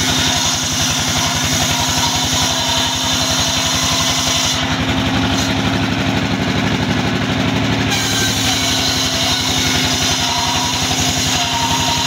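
Engine-driven bench saw at a sawmill running steadily, a continuous motor drone with fast, even low pulses. The high hiss drops away for a few seconds in the middle.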